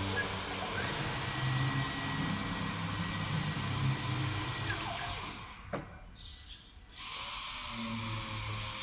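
Small 6090 CNC router's 2.2 kW water-cooled spindle running with a steady drill-like whine and hiss. The sound falls away for about two seconds past the middle, then resumes.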